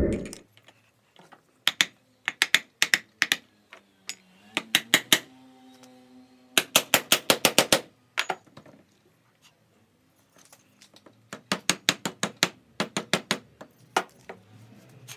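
Bursts of rapid, sharp clicks, with a short steady hum about five seconds in, as the end cover of an electric motor is fitted and screwed back down.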